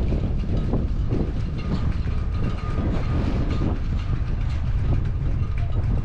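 Strong wind buffeting the microphone in a continuous low rumble, with faint walking footsteps.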